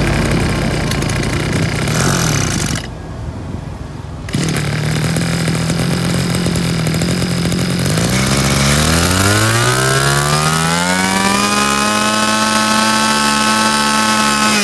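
STIHL FS26 26cc two-stroke brush cutter engine on a test run. It idles steadily, with a brief lull about three seconds in, then revs up with a rising whine from about eight seconds in and holds at high speed.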